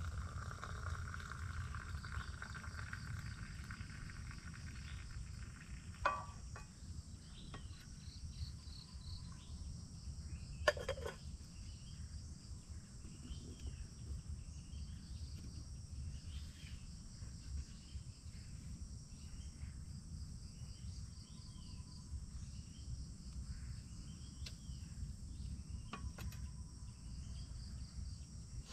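A steady, high-pitched chorus of insects, with short chirps over it. For the first few seconds, coffee pours from a pot into a steel mug. Cookware clinks sharply twice, about six and eleven seconds in; the second clink is the loudest sound.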